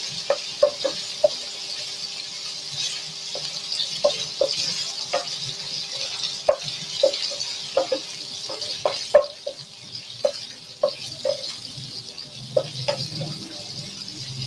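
Prawns frying in hot oil with a steady sizzle, while a spatula stirs them, knocking and scraping against the pan many times at an uneven pace.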